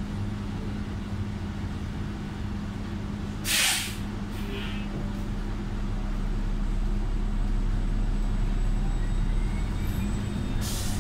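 Cabin sound of a 2013 New Flyer XDE40 diesel-electric hybrid city bus: a steady low drivetrain hum, broken about three and a half seconds in by a short hiss of compressed air from the bus's air system. The hum grows louder from about halfway. A faint rising whine comes in near the end, and a second air hiss comes right at the end.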